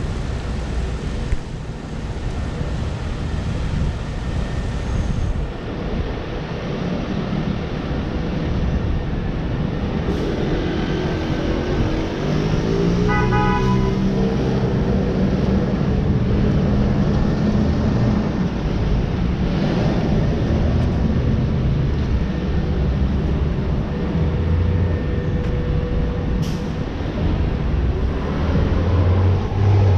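City street traffic: vehicles running and passing, with a heavier engine rising and holding in pitch about halfway through and a brief horn toot over it.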